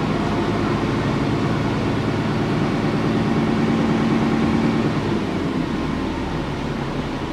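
Cummins ISBe diesel engine of an Alexander Dennis Enviro400 double-decker bus running under way. Its low hum is strongest through the middle, then eases off about five seconds in.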